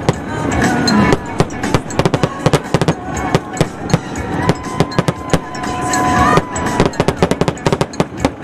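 Aerial fireworks going off in quick succession: a rapid, irregular string of sharp bangs and crackles from bursting shells.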